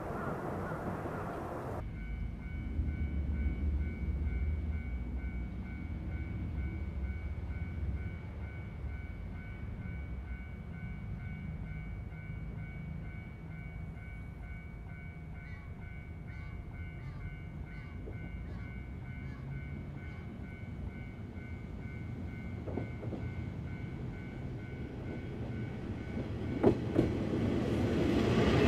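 Diesel railcar train, a tatami-room set converted from KiHa 400 and KiHa 56 cars, running toward the listener with a steady low engine rumble. It grows much louder near the end as the train draws close and passes, with a sharp wheel click just before.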